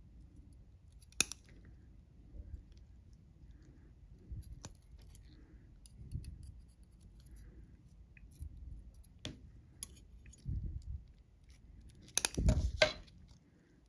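Steel surgical instruments clicking: a needle driver's ratchet catching and releasing and forceps tips meeting as sutures are placed, with scattered single clicks, a sharp one about a second in, and a rapid cluster of clicks near the end that is the loudest part. Soft handling rumble underneath.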